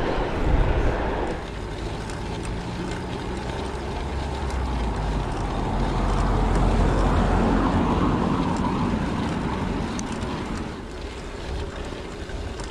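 Wind rushing over an action camera's microphone on a moving bicycle, mixed with the rolling noise of tyres on tarmac. It swells for a few seconds in the middle, then eases off near the end.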